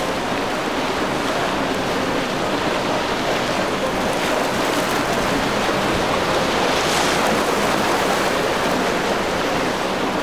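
Steady wash of surf and wind on the microphone, with a Yamaha jet sport boat's engine running faintly underneath as it motors through the inlet chop. A hiss of rushing water swells and fades about seven seconds in.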